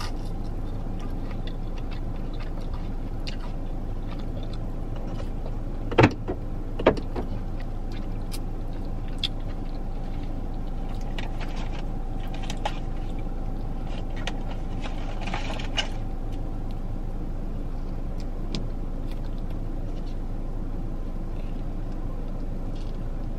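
Steady hum inside a parked car's cabin, with a faint steady tone through the middle. Two sharp knocks come about six and seven seconds in, and a few faint clicks are scattered through.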